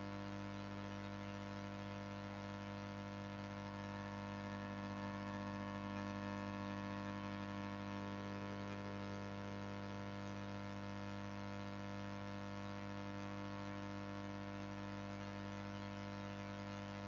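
Steady electrical hum with a buzzy edge, made up of several even tones, over a faint hiss. It holds unchanged, with no other events.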